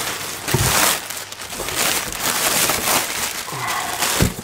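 Inflated plastic air-cushion packing pillows crinkling and rustling as they are handled and pulled out of a cardboard box, loudest about half a second in.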